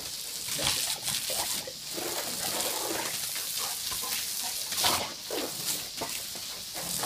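Garden hose spray gun hissing as its jet of water hits the paving and a dog, with the dog making short vocal noises at the spray.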